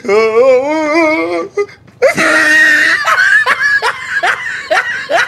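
A person's voice holding a long wavering note, then, about two seconds in, laughter: a run of short 'ha' sounds, each falling in pitch.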